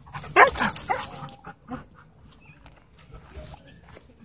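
Dogs play-wrestling: one lets out a loud, whining yelp about half a second in, its pitch bending up and then down, followed by short scuffs and clicks of the scuffle.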